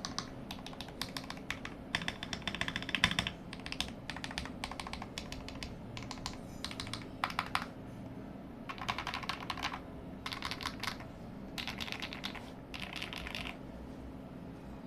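Typing on a modded CIY68 (Tester 68) 68-key mechanical keyboard: runs of quick key clicks in bursts with short pauses between them, stopping near the end.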